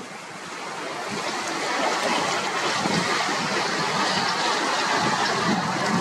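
Strong wind and choppy lake water, a steady rushing hiss that builds over the first couple of seconds and then holds.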